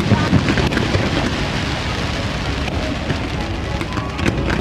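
Fireworks going off in a dense crackle, like heavy rain, with low booms rumbling near the start.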